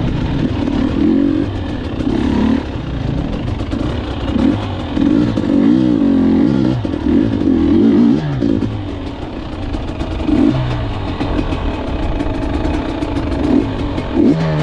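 Gas Gas EC 250 two-stroke enduro bike's engine revving up and down over and over as it is ridden off-road, its pitch climbing and dropping with the throttle, with some clatter from the bike.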